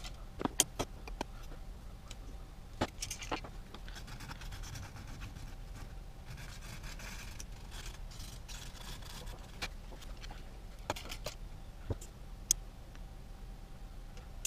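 A small plastic quadcopter propeller and its balancer shaft being handled by hand: scattered light clicks and taps, with a couple of stretches of soft scraping.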